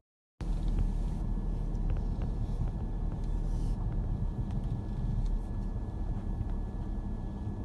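Steady low rumble of a car's engine and tyres heard from inside the cabin while driving, cutting in after a brief dropout at the start.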